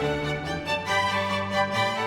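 Background music: instrumental, with strings such as violin carrying the tune.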